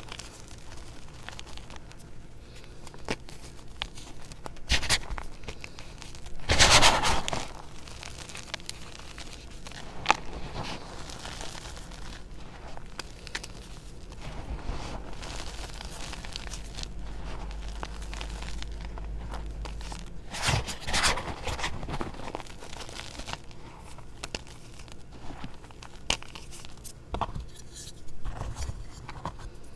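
Hands squeezing and crumbling crushed reformed gym chalk powder: dry crunching and crackling throughout, with louder crunches about seven seconds in and again around twenty-one seconds.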